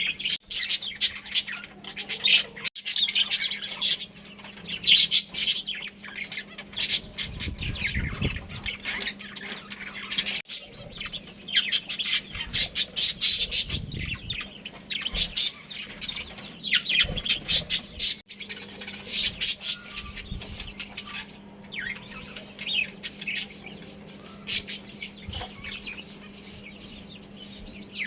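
A flock of budgerigars chattering, with dense, rapid high chirps and squawks overlapping, over a faint steady hum. The chatter breaks off suddenly for an instant three times.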